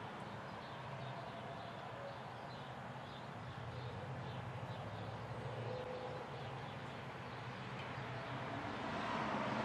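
Diesel engine of a front-loading garbage truck running as it pulls up to a dumpster, getting louder near the end as it comes closer.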